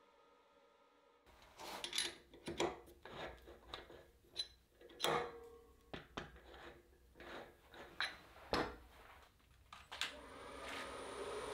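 Irregular clinks and knocks of a rough manzanita burl blank being fitted into the metal jaws of a wood lathe's chuck, about a dozen sharp strikes. Near the end the Robust wood lathe starts, and its steady running noise with a thin high whine takes over.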